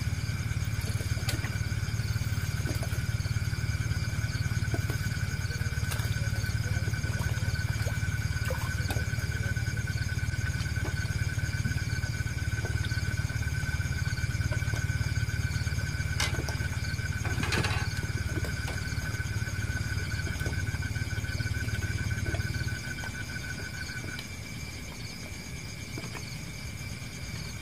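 A steady low rumble that cuts off suddenly about 23 seconds in, over the steady high-pitched trilling of insects in several tones, one of which stops a second later.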